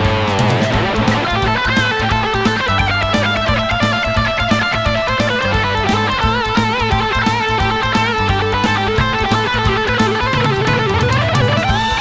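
Charvel electric guitar played through a Blackstar HT Club 50 valve amp head with delay added, playing fast lead lines with bends and vibrato, including a quick falling run in the first second and a half. A backing track with steady bass notes and drums plays underneath.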